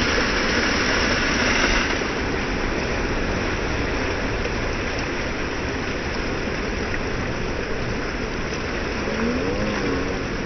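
Ocean surf breaking over and washing around a rock seawall, a steady loud wash of water. The hiss of spray is brightest in the first two seconds.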